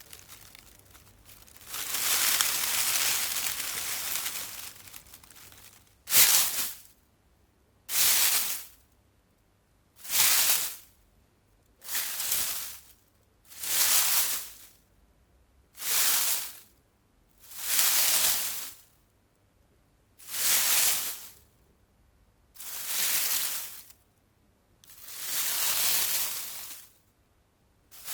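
Leaves and twigs of a bush rustling as they are shaken: one long rustle, then about ten short separate rustles roughly every two seconds, the last a little longer.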